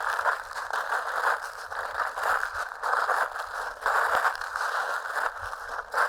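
Footsteps crunching and crackling through dry fallen leaves, one step after another at a walking pace.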